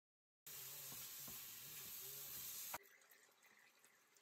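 Faint sizzling of chicken pieces frying in sauce in a pan, with a light click or two; it drops quieter about three seconds in.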